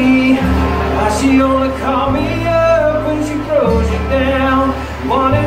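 Live acoustic duo playing: two acoustic guitars with a man and a woman singing through the PA, steady and full with no break.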